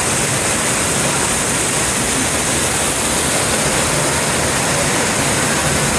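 Steady rushing of a waterfall, a dense even roar of falling water that does not let up.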